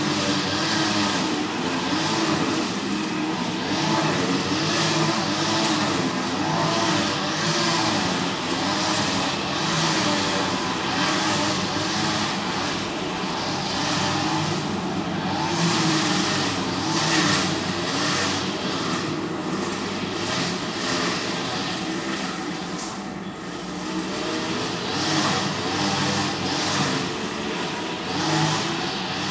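City traffic heard through a horn-type acoustic listening device: a continuous wash of cars passing, with wavering engine hum and tyre noise swelling and fading over and over.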